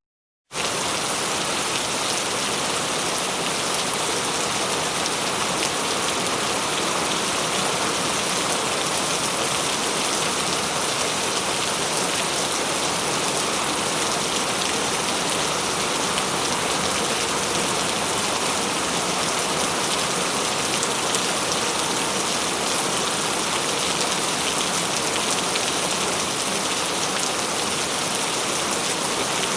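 Heavy rain falling steadily, a dense, even hiss of drops striking a surface, starting about half a second in after a moment of silence.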